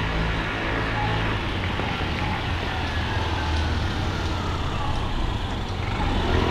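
City street ambience carried by a steady low mechanical hum, with faint background voices. Near the end a louder rising whine comes in.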